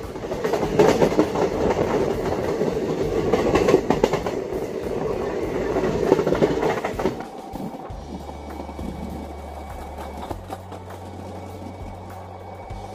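Passenger train running on rails, heard from an open coach door: loud rumble and wheel clatter for about seven seconds, then quieter. Background music with held low notes takes over for the rest.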